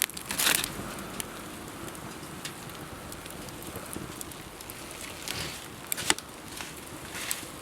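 Wood campfire crackling steadily, with sharp pops about half a second in and again about six seconds in.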